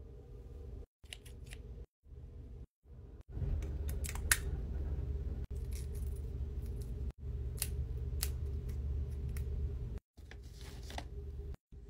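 Scissors cutting paper: a handful of separate sharp snips over a low steady hum, the sound dropping out briefly several times.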